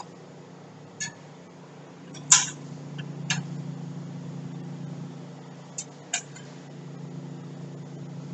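Sharp metal clinks and knocks from tools and bolts being worked while a fan shroud is fitted to an excavator radiator. There are about half a dozen, the loudest about two seconds in, over a steady low hum.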